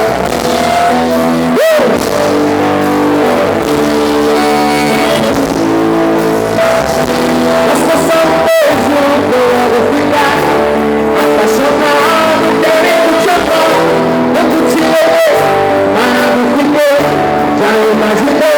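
A forró band playing, with a singing voice over guitar and sustained chords.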